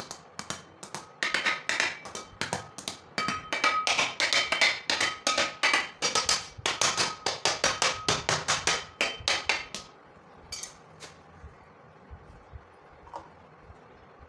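A knife cutting through kinetic sand on a hard surface, in rapid crisp strokes of about four or five a second, with a slight ringing from the blade. The strokes stop abruptly about two-thirds of the way in, leaving a few single taps.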